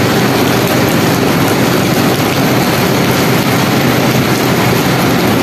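Heavy rain pouring down, a loud and steady even hiss.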